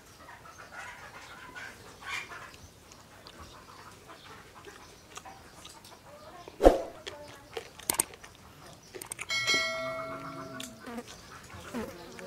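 Close eating sounds of a man chewing and smacking his lips as he eats rice and fish by hand, with two sharp loud smacks about seven and eight seconds in. A brief steady pitched call sounds for about a second and a half after that.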